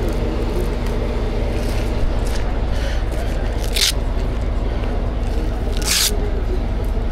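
Nylon tow-strap webbing being handled and folded on asphalt, with two short scraping swishes a couple of seconds apart, over the steady drone of an idling engine.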